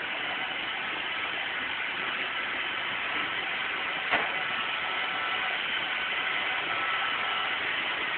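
Roomba robot vacuum running with a steady whir, with one short knock about four seconds in.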